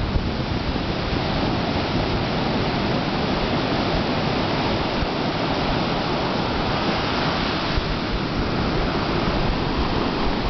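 Ocean surf: several rows of waves breaking and foam washing up a sandy beach, making a steady rushing noise without pause.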